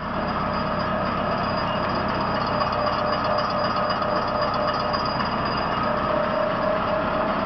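Hobart 4352 meat grinder running empty: a steady mechanical drone from its motor and gear drive, with a steady whine over it.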